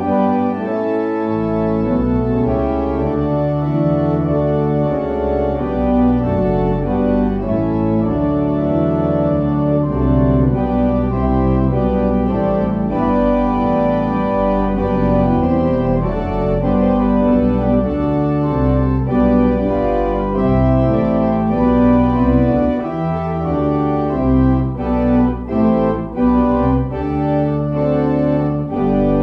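Organ playing slow, sustained chords over a low bass line, with shorter, separated chords near the end.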